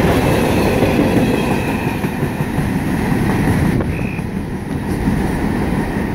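Freight train cars rolling past at track speed, a loud steady rumble of wheels on rail, with a short high tone about four seconds in.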